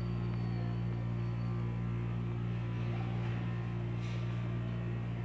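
Steady electrical mains hum, a low buzzing drone with its overtones, over faint room noise.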